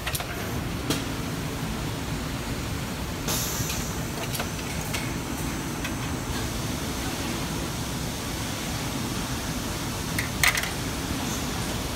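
Strobel KA-ED automatic lapel roll-padding machine at work: a steady mechanical hum, a short hiss about three seconds in, and a few sharp clicks, the loudest a double click near the end.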